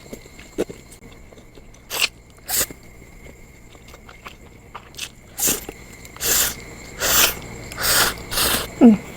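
Close-miked crunchy chewing and biting in short bursts, sparse at first and then coming in a steady rhythm about once every second for the last few seconds.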